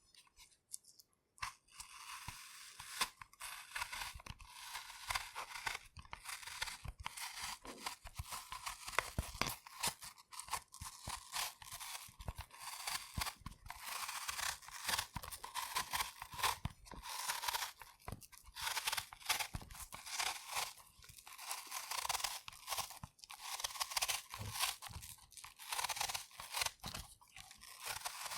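Knife peeling a green apple: a continuous crisp scraping and tearing of the skin with many small crunchy clicks, starting about a second and a half in.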